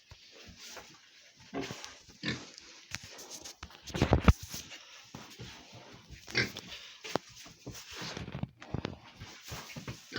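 Domestic pigs grunting and scuffling as they are driven into a new pen, with irregular knocks and one heavy thump a little after four seconds in.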